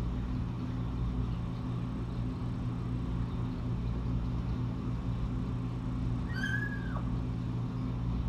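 A young kitten gives one short, high mew about six and a half seconds in, its pitch holding and then dropping away, over a steady low hum.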